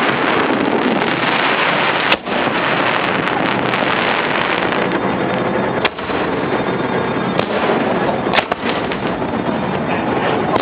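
Fireworks display close at hand: a dense, continuous crackle and rumble of bursting shells, with sharper single bangs about two, six and eight and a half seconds in.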